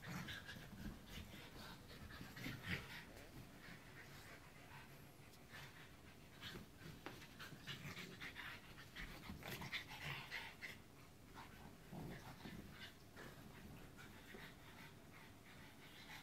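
French bulldog and Sheltie puppies play-wrestling on carpet: faint, irregular sounds of their scuffling and breathing, with short louder moments here and there.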